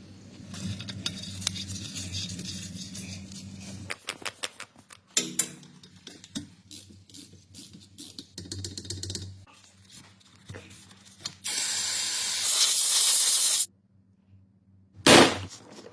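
Scattered clicks and knocks of tools and parts being handled, then a loud spray hiss lasting about two seconds that cuts off suddenly, and a sharp knock near the end.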